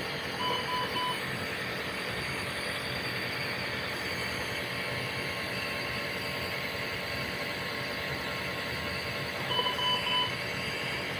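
Medical monitor alarm giving short groups of three beeps, once near the start and again near the end, over a steady background hiss.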